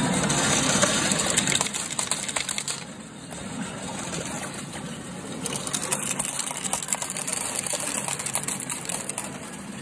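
Metal arcade medals pouring and clattering off a medal pusher machine's ledges in a dense, continuous rattle, the payout the caption calls jaba-jaba (gushing). It is heaviest in the first second and a half, eases off, then picks up again about halfway through.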